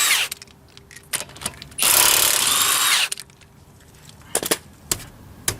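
Impact wrench loosening a 19 mm lug nut: a burst of hammering ends just after the start, then a second burst lasts about a second and a half. A few light knocks follow near the end.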